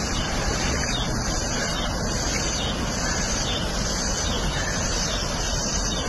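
Steady rushing of fast-flowing floodwater, mixed with wind noise on the microphone.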